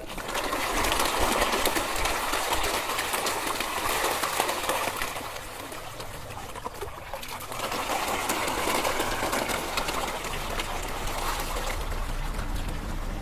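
A dense crowd of koi thrashing and gulping at the surface of a pond, making a steady crackling splash and slurp of water that eases off briefly near the middle.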